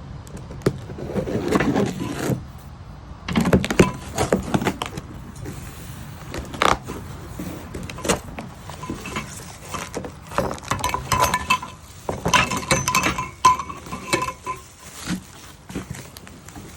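Metal parts of a heavy-duty lawn leveling rake being handled during unboxing: irregular clinks and knocks, with a faint metallic ring now and then.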